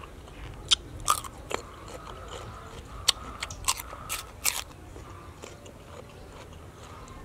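A person biting and chewing chicken, with a string of sharp, irregular crunches that thin out after about four and a half seconds.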